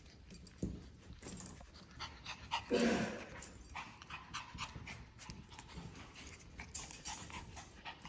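Teddy bear puppies play-fighting: quick panting breaths and scuffling on the mat, with one brief louder sound about three seconds in.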